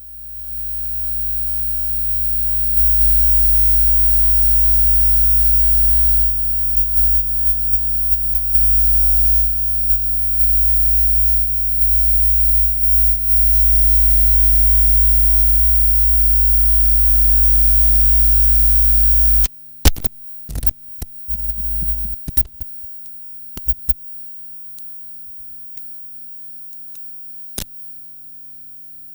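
Bad connection in an amplified audio cable: a loud mains hum fades in, then stutters and drops out several times as the loose contact breaks. About two-thirds of the way through the hum cuts off abruptly, leaving scattered crackles and pops.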